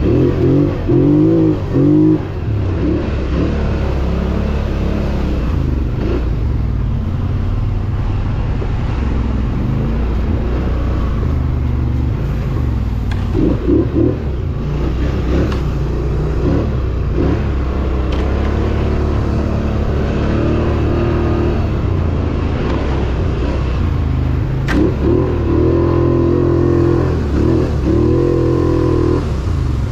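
ATV engine running under throttle, its pitch rising and falling as the rider speeds up and eases off, with sharper revs near the start, about thirteen seconds in, and again near the end.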